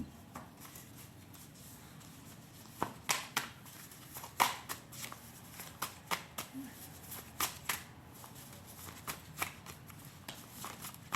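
Tarot cards being shuffled and handled by hand: an irregular run of crisp card slaps and snaps, the loudest about four and a half seconds in.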